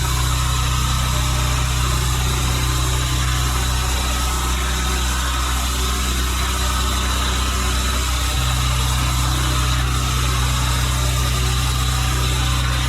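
Pressure washer engine running steadily, with the constant hiss of the water jet spraying over it.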